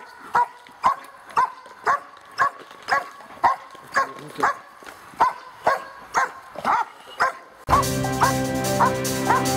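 A 15-month-old German Shepherd barks repeatedly at a protection-training helper while tied on a line, about two barks a second. Loud background music comes in suddenly near the end, and the barking goes on under it.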